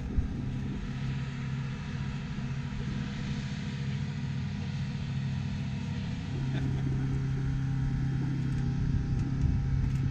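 Steady low engine drone with a constant pitched hum, growing somewhat louder about six seconds in, and a single thump at the very start.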